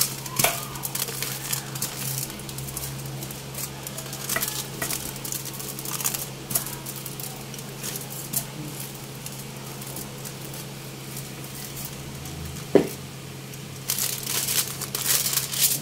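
Wooden rolling pin working flatbread dough on aluminium foil: scattered light taps and foil crackles over a steady low hum, with one sharp knock about three-quarters through. Near the end the foil is handled and crinkles loudly.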